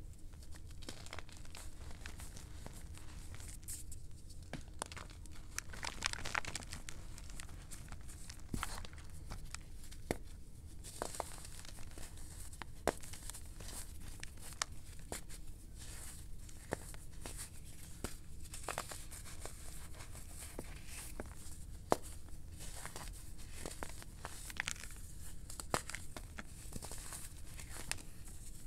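Gym chalk chunks breaking and being crushed between fingers in a plastic bowl, with crumbling powder. Soft dry crunching and rustling, broken by many small sharp snaps.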